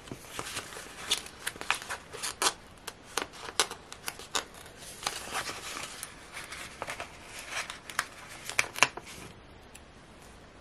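Paper stickers peeled off a sticker sheet and the sheet handled: a run of small crackles, ticks and paper rustles, stopping about nine seconds in.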